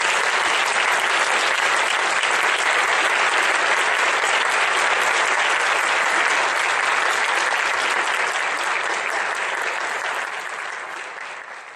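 A large audience applauding steadily, fading out near the end.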